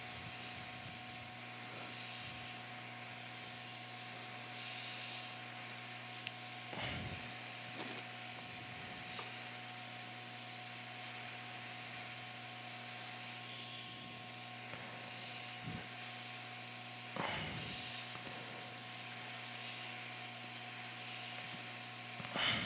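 Hakko FR-801 hot air rework station blowing a steady hiss of hot air onto a circuit board, with a steady hum underneath. This strong airflow noise is what a powerful hot air station should make. Three brief taps, the last near the end the loudest.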